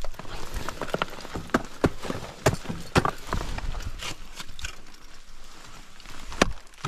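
Ice tools and crampons striking water ice: a run of sharp, irregular strikes, the loudest about three seconds in and another near the end.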